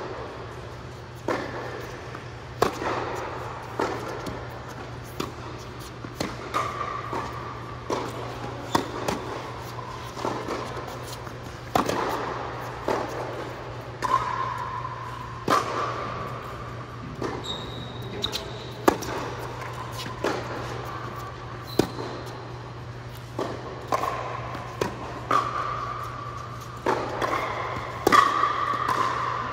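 Irregular series of sharp thuds or knocks, roughly one every second or two, with short squeaks between them and a steady low hum underneath.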